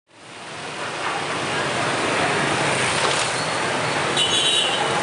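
Street traffic of cars and motorbikes passing on a wet road, a steady rushing noise that fades in over the first second. About four seconds in, a brief high-pitched tone sounds over it.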